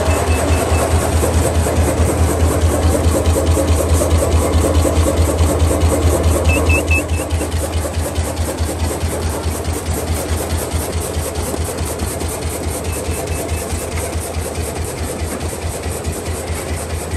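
Bag-on-roll making machine running, its mechanism cycling in a rapid, even rhythm over a steady low hum; the sound drops a little about seven seconds in.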